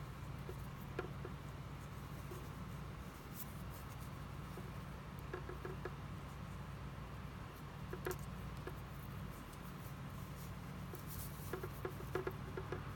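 Faint scattered clicks and rustles of hands working a thin wire leader and fishhook through a braided paracord lure, coming in small clusters and thickest near the end. A steady low hum runs underneath.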